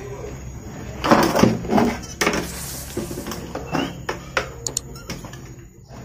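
Plastic toilet cistern parts being handled and fitted together: knocks, rattles and a scrape of hard plastic on plastic, loudest about a second in, with sharp clicks later.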